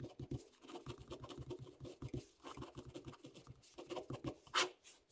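Ballpoint pen writing on graph paper: faint, irregular scratching of short pen strokes, with one louder stroke about four and a half seconds in.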